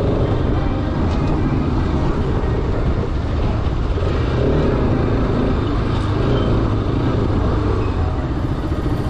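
Bajaj Pulsar RS 200's single-cylinder engine running steadily at low speed in slow traffic, with road noise.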